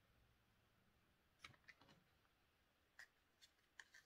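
Near silence, with a few faint clicks and taps as small cosmetic compacts and their packaging are handled.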